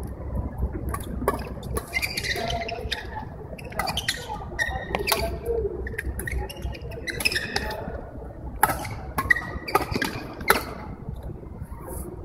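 Badminton doubles rally: a string of sharp racket strikes on the shuttlecock, about a dozen, mixed with short squeaks of shoes on the court floor.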